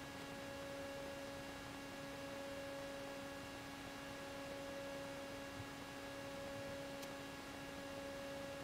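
Faint steady electrical hum, a low buzzing tone with a stack of higher overtones, over a background hiss.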